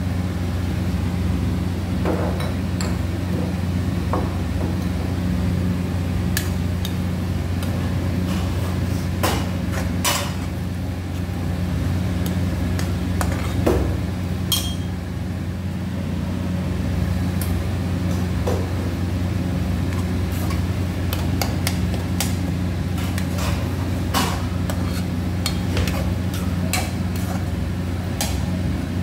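Metal spatula scraping and knocking against a metal kadai as thick onion-tomato thokku is stirred, in irregular clinks that come thicker near the end, over a steady low hum.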